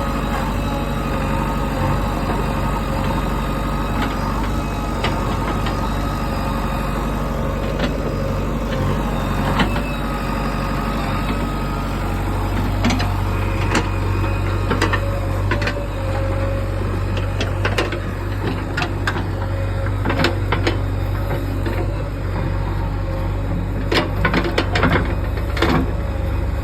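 JCB excavator's diesel engine running steadily; its low note strengthens about twelve seconds in. Scattered clanks and knocks come through the second half, growing more frequent near the end.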